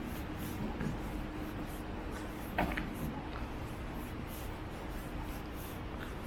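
Footsteps of someone walking along a trail at a steady pace, about two steps a second, over a steady background hiss. One short sharp sound about two and a half seconds in.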